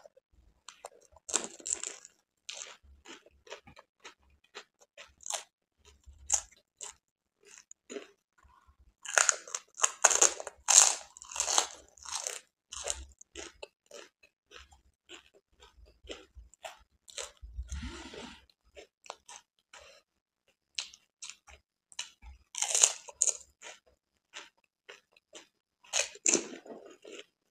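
Close-up crunching and chewing of pani puri: crisp hollow fried puri shells filled with spiced water cracking between the teeth. Several bursts of sharp crunches with quieter chewing between, the longest run about ten seconds in and more near the end.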